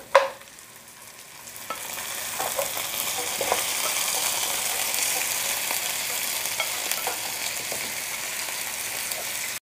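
Pressure-cooked beef chunks tipped from a glass bowl into a hot wok of sautéed onion and garlic: a sharp knock at the start, then frying that builds over the first two seconds into a steady sizzle with scattered pops, cutting off abruptly near the end.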